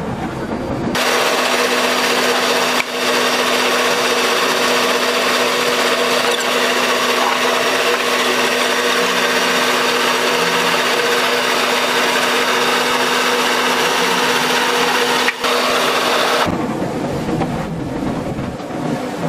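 Roller-type root vegetable washing and peeling machine running with roots inside: a loud, steady mechanical drone with a constant hum under a dense hiss. About 16 seconds in, the sound shifts to a lower, rumbling machine noise as peeled roots drop out of the machine.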